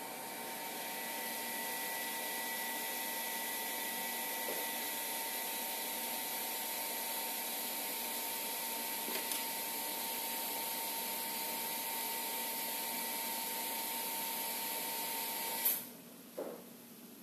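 Steady machine noise, an even whirring hiss with a faint high whine, that cuts off abruptly with a click near the end, followed by a soft knock.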